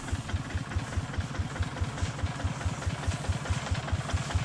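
Two-wheel walking tractor's single-cylinder diesel engine idling with a steady, even chugging.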